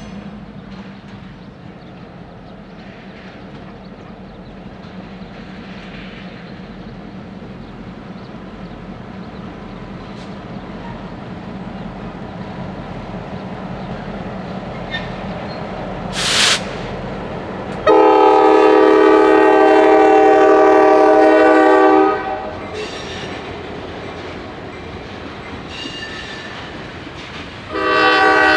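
Norfolk Southern diesel freight locomotive approaching, its rumble slowly growing louder, then its air horn sounding a loud multi-note chord for about four seconds, and again near the end. A brief sharp burst of noise comes just before the first horn blast.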